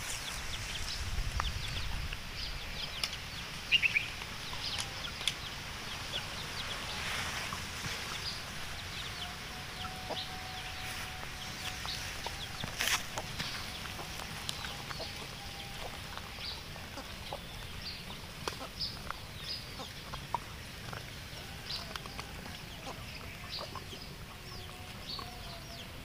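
A puppy eating in long grass: many quick, irregular chewing and licking clicks, with the grass rustling around its head.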